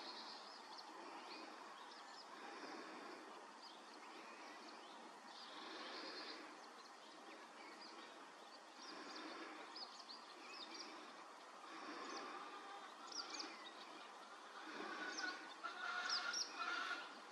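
Woodland ambience: a steady hiss with small birds chirping, the chirps coming more often in the second half.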